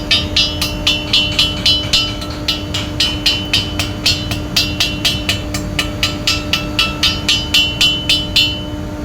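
Chipping hammer knocking slag off a stick-welded steel pipe joint: quick ringing metallic taps, about three a second, which stop near the end. A steady low hum runs underneath.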